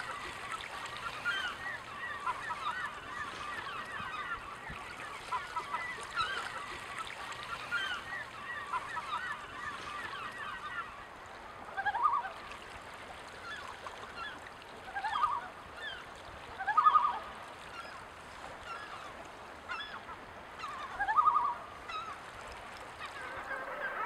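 Waterbirds calling: many overlapping distant calls for about the first half, then several louder, separate short calls spread over the second half, each rising in pitch.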